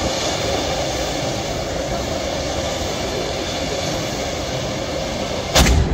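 Japanese spouting tube firework sending up sparks with a steady, loud rushing hiss. About five and a half seconds in it ends with one sharp bang, and the rush dies away.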